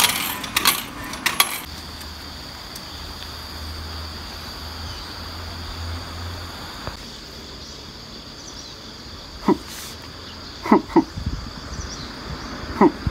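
Drinks vending machine clattering, a few sharp clicks and knocks in the first second and a half as coins or a can drop. Then a steady high insect drone, with a few short knocks near the end.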